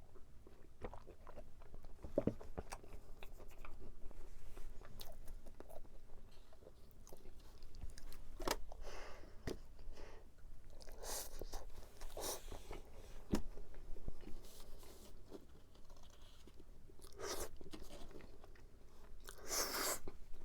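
Close-up eating of a sweet tart: crunchy bites into the pastry and steady chewing with small wet mouth clicks, with several louder crunches in the second half.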